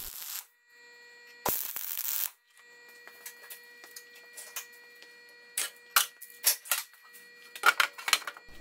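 Two short bursts of MIG welding arc hiss, one ending just after the start and a louder one at about a second and a half in. After them comes a run of sharp metallic clicks and clanks near the end as a sheet-steel base is handled and set onto the steel frame, over a faint steady hum.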